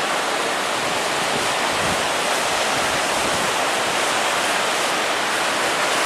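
Steady rushing noise of strong wind and surf, an even hiss with no breaks.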